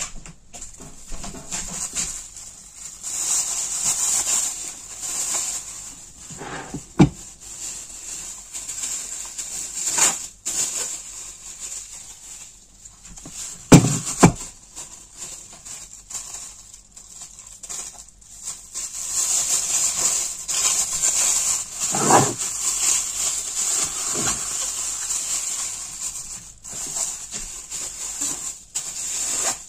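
Plastic cling film rustling and crinkling as it is wrapped by hand, with a few knocks of objects being set down, two of them close together about halfway through.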